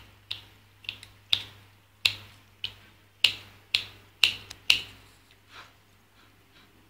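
Scissors snipping again and again in sharp clicks, roughly one every half second, about a dozen cuts that thin out and grow fainter near the end.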